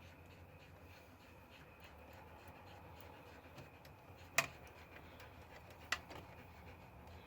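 Two sharp clicks about a second and a half apart, over a faint steady low hum: hand work on the wiring of a well pump control box as its wires are unhooked.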